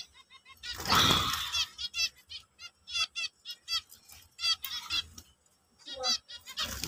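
Caged zebra finches calling: a busy run of short, repeated calls from several birds, with a loud rustling burst about a second in.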